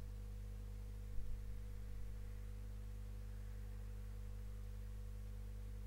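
A steady low electrical hum with no change in pitch or level, and a faint brief sound about a second in.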